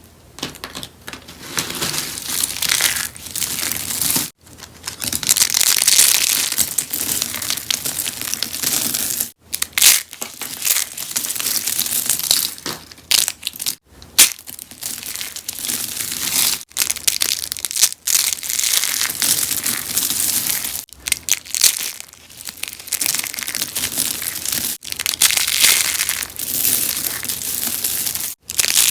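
Rose soap being crunched and crushed: a continuous crisp crunching and crackling, broken by a few very brief gaps.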